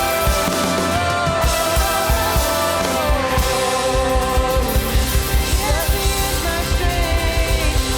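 Contemporary worship band playing, with drums keeping a steady beat under long held melody notes.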